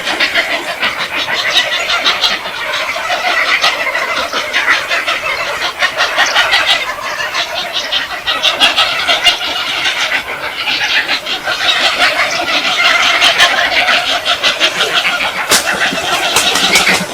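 A flock of birds feeding, many calling and chattering at once in a loud, continuous din with sharp squawks throughout.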